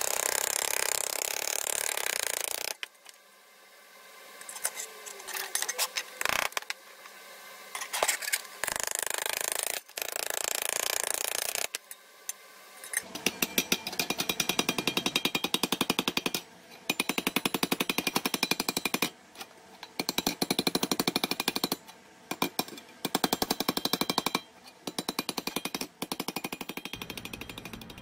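Metal-working noise from a pressed-steel toy truck bed being straightened: noisy bursts at first with scattered sharp clicks, then from about halfway a fast, even run of strokes broken by short pauses.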